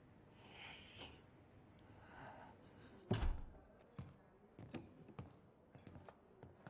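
Faint breathy sighs, then a heavy door thud about three seconds in as a door is pushed open, followed by footsteps clicking across a hard floor.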